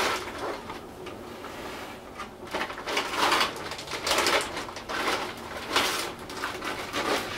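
A plastic bag crinkling as it is handled and opened, in irregular bursts, with paper sheets rustling as they are drawn out of it.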